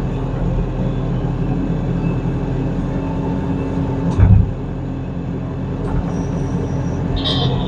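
Tractor engine running steadily, heard from inside the cab, with a heavy thump about four seconds in and a short metallic clank near the end.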